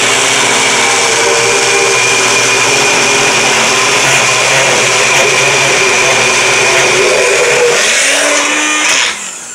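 Personal bullet-style blender motor running steadily at full speed with a constant high whine, blending frozen fruit into a thick smoothie. It cuts off about nine seconds in as the cup is released.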